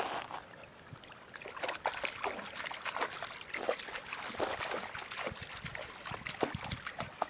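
A dog wading through a shallow, icy stream, its legs splashing in the water in short, irregular splashes.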